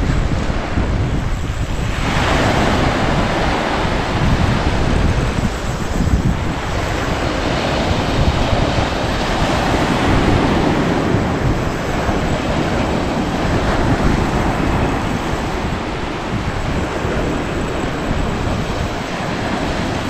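Surf breaking and washing up a pebble beach, swelling every few seconds, with wind buffeting the microphone.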